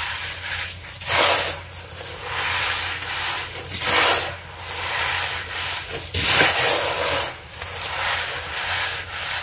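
Repeated hissing rushes, one every second or so, as cornstarch powder is cleared out of grass.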